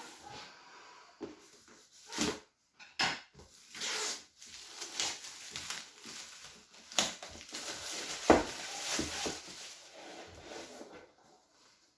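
A cardboard jigsaw puzzle box being opened by hand: irregular rustling and scraping of the box and its wrapping, with short knocks, the sharpest about eight seconds in.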